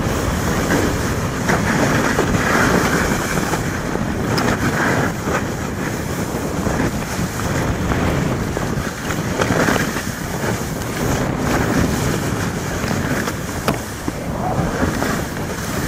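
Wind rushing over the camcorder microphone as it moves downhill, mixed with the hiss of snowboards sliding through snow. The noise swells and eases every second or two as the riders turn.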